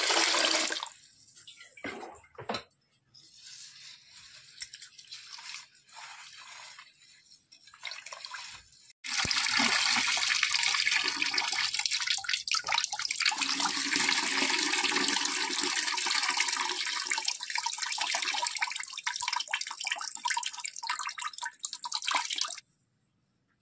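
Water poured into a steel bowl of raw rice, then quieter splashing. From about nine seconds in, the cloudy rinse water pours steadily out of the tilted bowl over a hand, until it stops suddenly near the end.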